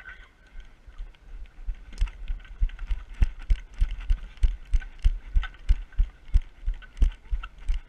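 Dull, low thumps from a large Pearl marching bass drum and its carrier, about three a second, with light clicks on top. They begin about a second in and grow louder.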